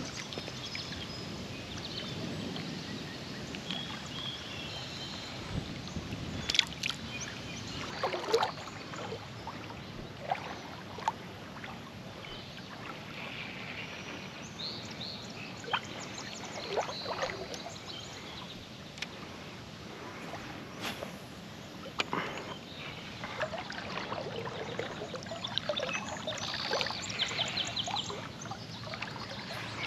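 River water moving and splashing close by, with scattered small splashes and light clicks over a steady wash of water noise.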